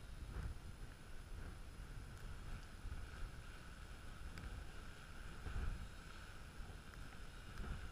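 Wind buffeting the microphone in a gusty low rumble, over the steady hum of a drone's motors and propellers.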